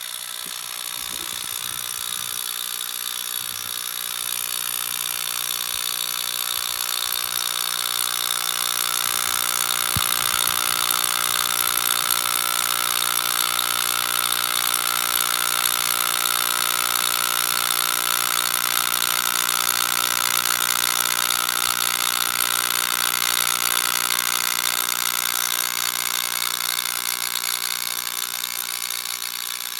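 Continuous crackling buzz of high-voltage sparks from a 14 kV oil-burner igniter arcing across the narrow gap of a glass-plate capacitor chamber. It grows a little louder over the first ten seconds and eases near the end.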